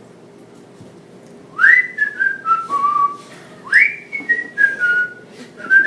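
Someone whistling a short, cheerful tune in phrases, each a quick upward swoop followed by a few notes stepping down. The first phrase starts about a second and a half in, the second follows about two seconds later, and a third begins near the end.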